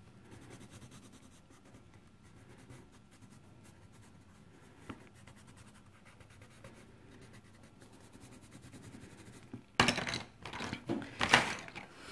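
Coloured pencil scratching softly on paper as a maze page is coloured in, with a single click about five seconds in. Near the end come a few short, loud bursts.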